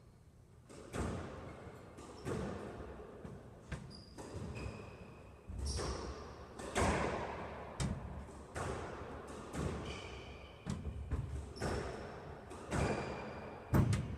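Squash rally: the ball is struck by rackets and smacks off the court walls about a dozen times at an uneven pace, with shoes squeaking briefly on the court floor between shots.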